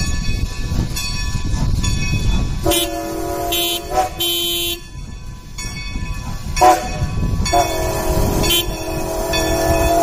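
Strasburg Rail Road No. 90, a 2-10-0 steam locomotive, sounding its steam whistle for a grade crossing. A long blast comes about three seconds in, then a short one, a brief toot near the middle, and a long blast held through the end, all over the locomotive's low rumble.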